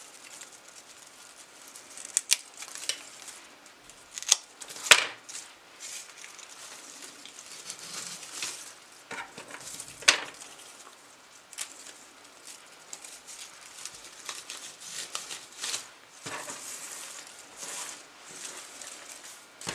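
Rustling of salal and other cut greenery being handled and pushed into floral foam, with a scatter of sharp clicks and snaps. The loudest of these come about five and ten seconds in.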